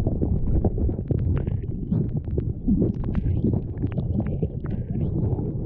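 Heard underwater: a churn of air bubbles rushing and gurgling over a low rumble, with many small scattered clicks, as someone plunges into the water.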